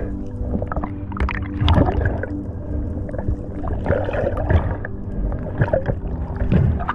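Water rushing and gurgling against an underwater camera during a dive, with short sudden splashes and bubble bursts over a steady low hum.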